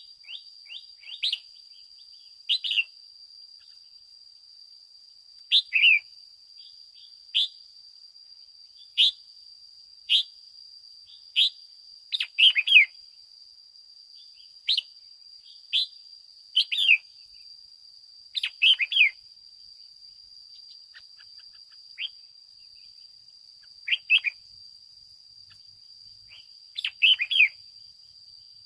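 Red-whiskered bulbul singing: short, loud phrases of quick falling whistled notes, one every one to three seconds, with gaps between them. A faint steady high-pitched tone runs underneath.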